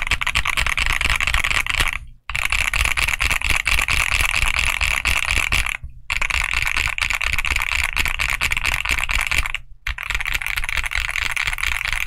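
Fast, steady typing on a Sugar65 mechanical keyboard with Outemu Hanny full-POM linear switches and Domikey Hush keycaps: a dense run of keystroke clacks, stopping short three times, about two, six and ten seconds in.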